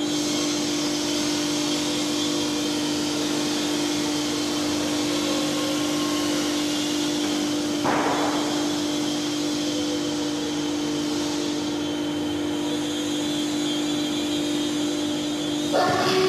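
Steady electric hum from the animatronic dinosaur's drive motors running as it moves, one low steady tone over a hiss. A short rushing burst about eight seconds in.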